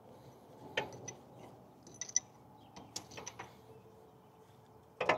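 Scattered small clicks and scrapes of a metal pick against a brass pressure-washer pump manifold as high-pressure water seals are worked into their bores. There is a brief metallic ping about two seconds in and a louder clack near the end.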